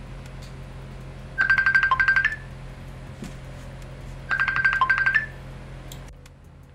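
An electronic ringtone trilling twice, about three seconds apart: each ring is a fast warbling beep held on one pitch that steps down briefly near its end. A steady low hum lies beneath.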